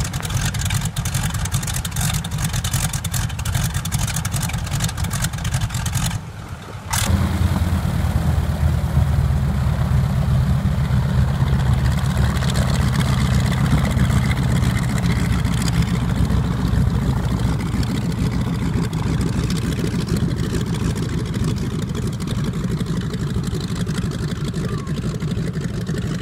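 Harvard trainer's Pratt & Whitney R-1340 radial engine running at low power with a rapid crackle of firing strokes. After a brief break about six seconds in, it runs louder and steady as the aircraft taxis.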